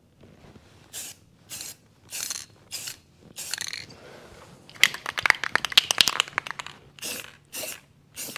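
Aerosol spray-paint can hissing in five short bursts, then its mixing ball rattling fast as the can is shaken for about a second and a half, then three more short spray bursts.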